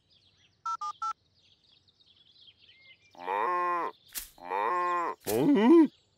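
Three quick electronic beeps of a mobile phone being dialled, about a second in, then three bleating farm-animal calls of about half a second each, from about three seconds in, with a sharp click between the first and second.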